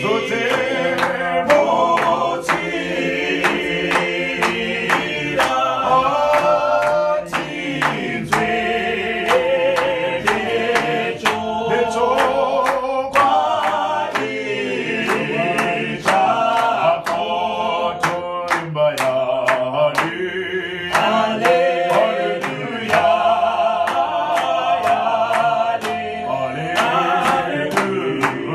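Small mixed choir of men's and women's voices singing a Shona hymn a cappella in harmony, with steady hand clapping keeping the beat.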